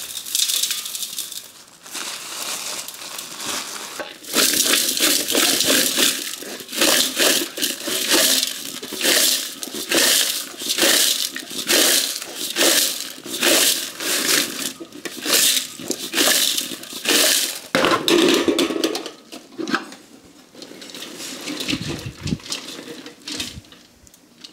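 Sliced bitter gourd being mixed with salt in a large stainless-steel bowl, the bowl tossed by its rim: the slices rustle and crunch against each other and the steel in repeated strokes, a little over one a second. The strokes ease off after about 18 seconds into quieter, scattered rustling.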